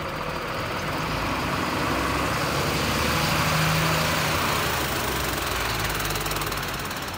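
Truck engine running steadily, growing louder towards the middle and easing off near the end.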